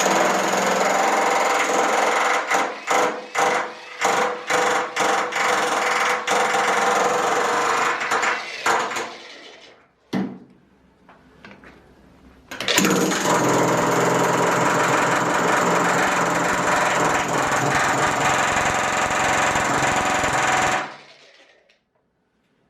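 A power tool working on the old boiler in two long runs, each about eight or nine seconds, with a pause of a few seconds between them. The noise is loud and rapid-fire.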